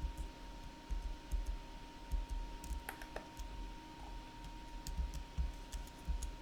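Irregular clicks of a computer keyboard and mouse in use, over a faint steady high tone.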